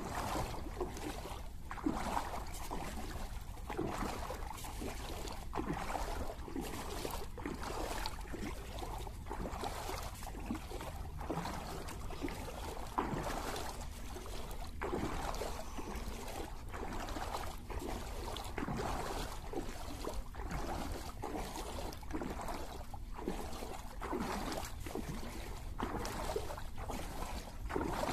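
Floodwater sloshing and splashing irregularly over a steady low rumble.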